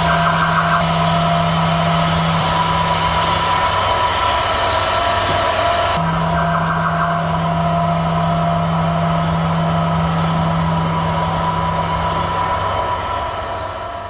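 A loud, steady, dense drone of noise with several held tones underneath, like a rumbling train or machinery. Its texture changes abruptly about six seconds in, and it starts fading out near the end.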